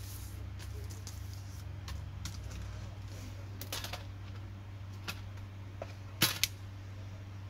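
Plastic laptop chassis and keyboard of a Dell Latitude E7440 being handled and turned over, giving scattered light clicks and knocks, with a sharp double knock about six seconds in. A steady low hum runs underneath.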